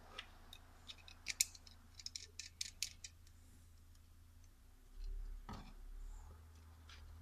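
Small plastic GoPro mount parts clicking as they are handled and fitted together: a quick run of sharp clicks over the first three seconds, then a low rumble of handling with one more click.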